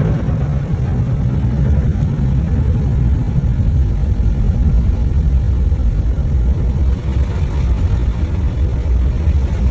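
Automatic car wash running over a car, heard from inside the cabin: a steady low rumble of the wash machinery with water spraying on the windows.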